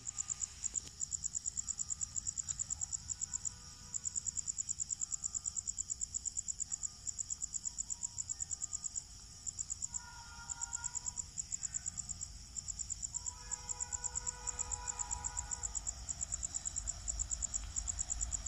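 Crickets chirping: a high-pitched trill of rapid, even pulses, about eight a second, in runs with short breaks, over a faint low rumble.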